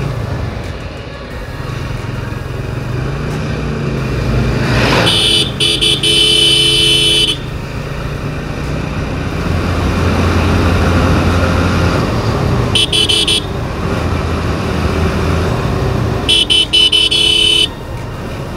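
Motorcycle engine running at road speed, with wind and road noise and an engine hum that rises and falls with the throttle. A vehicle horn sounds three times in choppy bursts: a long one about five seconds in, a short one near the middle and another near the end.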